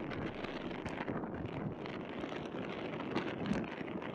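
Steady wind noise on the microphone over the wash of sea waves against rocks.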